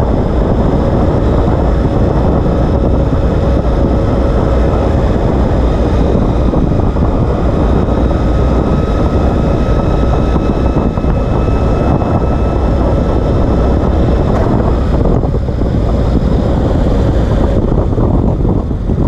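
Ural Gear Up sidecar motorcycle under way, heard from just beneath the rig: wind buffeting the microphone and tyre and road rumble over the running of its air-cooled boxer twin, loud and steady, with a faint thin whine above it.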